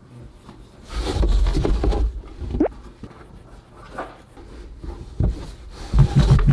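A cat moving about close to the microphone inside a box on carpet: soft thumps and scuffing, loudest for about a second and a half from about a second in and again near the end, as it noses at treats.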